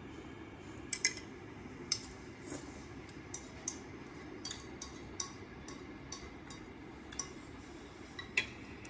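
Spoon and chopsticks clinking and tapping against a ceramic plate and pan while eating: about a dozen sharp clicks at irregular intervals over steady low room noise.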